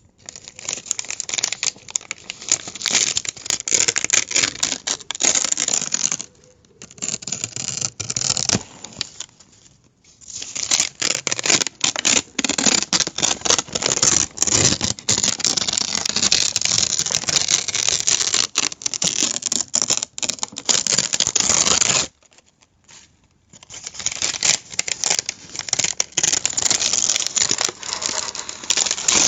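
Paper being crumpled and crinkled by hand, a dense crackle of many small sharp crinkles in long spells, with brief pauses after about six seconds, nine seconds, and a longer one a little past twenty-two seconds.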